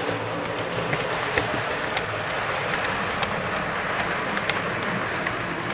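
Model Glacier Express train rolling along the track: a steady rumble of the small wheels on the rails with a low hum underneath, broken by scattered sharp clicks as the wheels cross rail joints.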